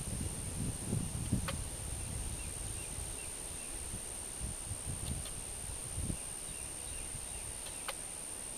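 Outdoor ambience: low wind rumble on the microphone that eases after the first couple of seconds, under a steady high-pitched whine, with two sharp clicks, one about a second and a half in and one near the end.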